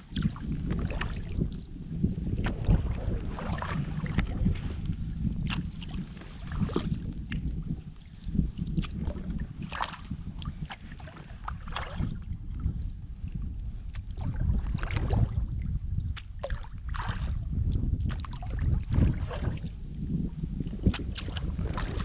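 Kayak paddle strokes dipping and splashing in calm river water, an irregular splash every second or two, over a steady low rumble.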